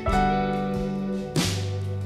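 Worship band playing an instrumental passage with no singing: acoustic guitar chords struck twice, at the start and about one and a half seconds in, ringing out over sustained keyboard and low notes.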